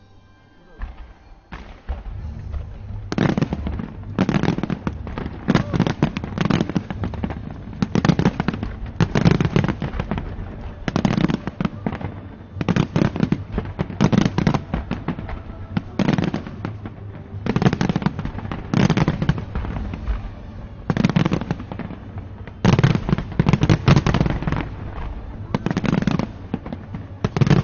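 Fireworks exploding in a constant barrage of sharp bangs and crackling bursts, several a second, with a low rumble underneath. The barrage starts about three seconds in, after a short lull.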